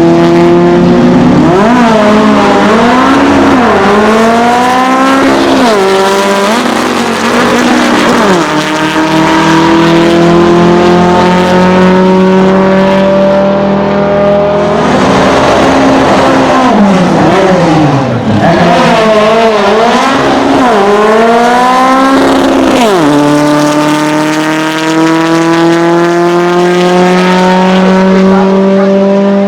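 Air-cooled VW Beetle drag-racing engine revved hard, its pitch swinging rapidly up and down in two spells and held high between them. About 23 s in it drops sharply, then climbs slowly again.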